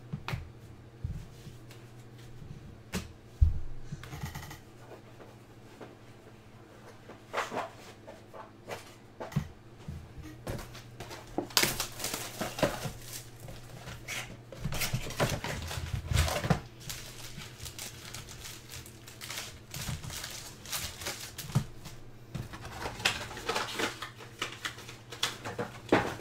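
A Panini Select basketball card box being opened and its foil packs handled: scattered taps and knocks, with bursts of rustling and wrapper crinkling about halfway through and again near the end.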